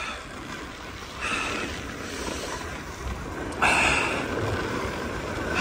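Skis sliding and scraping over a groomed snow piste, with wind rushing over the microphone. The scrape swells about a second in and again, louder, a little past halfway, as the edges bite into the snow.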